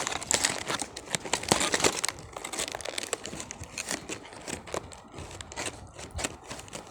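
Plastic packaging being handled and crinkled, dense crackling for about the first two seconds, then sparser rustles and clicks.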